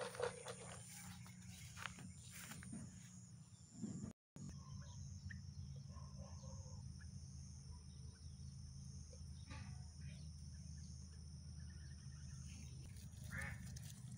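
Quiet rural garden ambience with faint bird calls over a steady high hiss. Rustling and footsteps through grass and plants come in the first few seconds, and there is a brief dropout about four seconds in.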